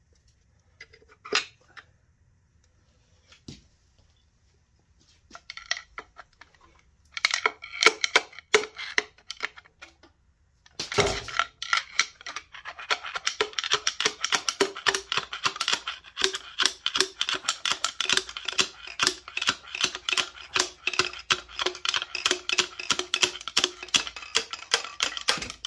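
A thin metal tool scraping and clicking against a connecting rod and crankshaft journal, prying out the stuck remains of a spun rod bearing in a Nissan VQ35DE engine. The clicks are sparse at first. One heavy knock comes about eleven seconds in, and then fast, continuous scraping and tapping follows, with a faint metallic ring.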